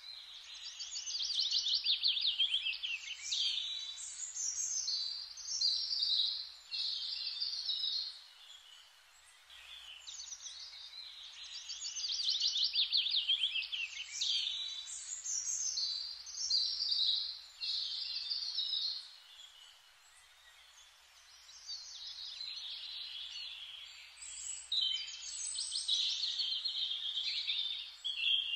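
Small birds chirping and trilling in quick high phrases, in three stretches with short lulls between them.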